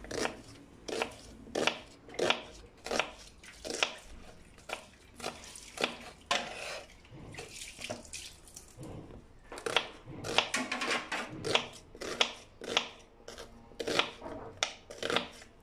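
Kitchen knife slicing through a raw onion and tapping the wooden cutting board, an irregular run of short crisp cuts about one or two a second, as the onion is cut into wedges.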